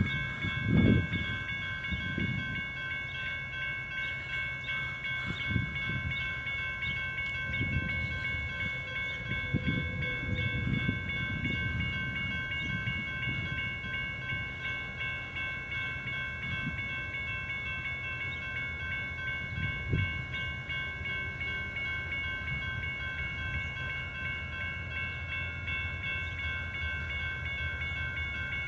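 Railroad grade-crossing bell ringing rapidly and steadily without a break, over an irregular low rumble.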